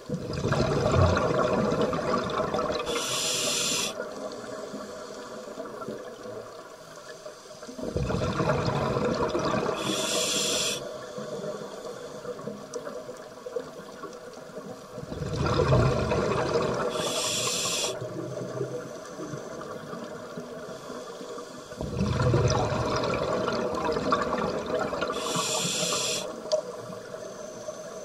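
Scuba regulator breathing underwater: four slow breath cycles about seven seconds apart, each a loud rush of bubbling and hiss that fades to a quieter hush between breaths.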